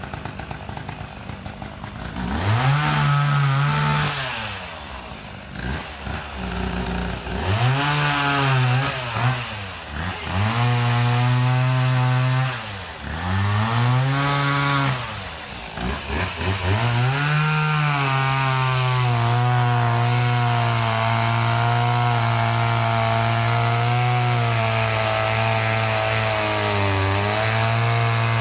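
Chainsaw idling, then revved up and let back down four times. It is then held at high revs with small dips in pitch, typical of a chain cutting through wood.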